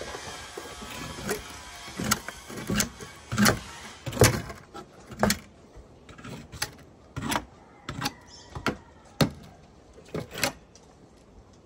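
A long-handled rake scraping and knocking against a dustpan on wooden deck boards while scooping up animal droppings: a run of irregular sharp clicks and knocks, with a hissy scrape in the first couple of seconds.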